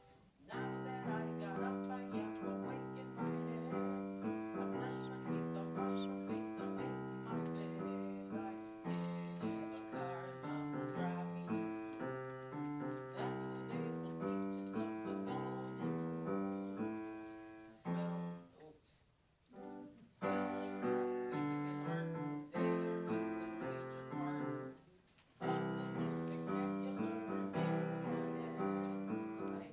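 Grand piano played solo, a steady flow of notes that breaks off twice for about a second, once about two-thirds of the way through and again a few seconds later.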